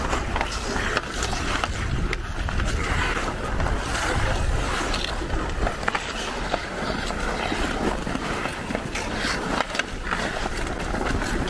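Ice skate blades scraping and gliding on natural ice, with the sharp clacks of hockey sticks hitting the ice during a pond hockey game.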